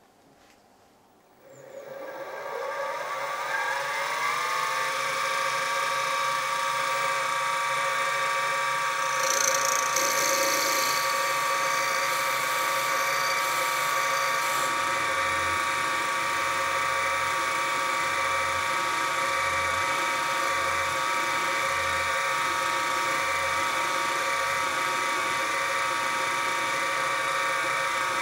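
Sieg SX2P mini mill spindle motor starting up about a second and a half in, its whine rising in pitch for a few seconds and then running steady while a 3/32-inch drill bores a pin hole through the crank boss. A brief louder hiss comes around ten seconds in.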